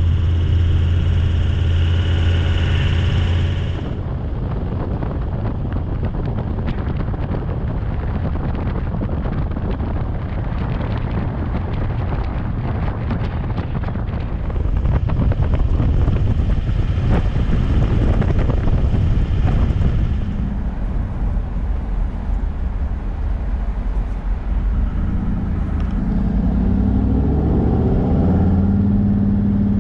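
Toyota LandCruiser 76 Series four-wheel drive driving: a steady low engine hum mixed with rattles and road noise, the engine pitch rising near the end as it speeds up.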